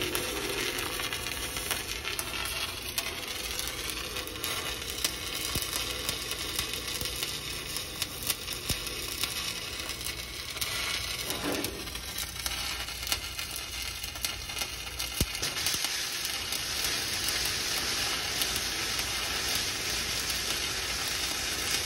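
Stick-welding arc from a 1/8-inch 7018 electrode running a vertical uphill bead: a steady crackling sizzle dotted with small sharp pops, a little brighter and hissier in the last few seconds.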